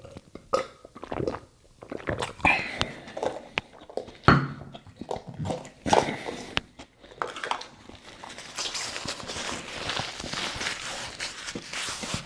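Close-miked eating sounds: biting and chewing with sharp wet mouth clicks. From about eight seconds in, a steadier rustling, rubbing noise takes over.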